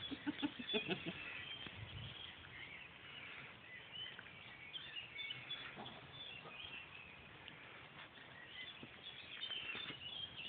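Faint birds chirping throughout, with a few short, soft sounds from play-fighting wheaten terrier puppies in the first second.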